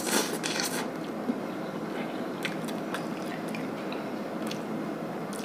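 A person slurping in a forkful of instant noodles, then chewing with small wet mouth clicks.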